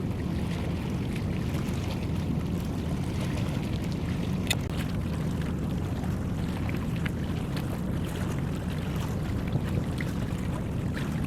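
Steady low rumble of a harbour work boat's engine running.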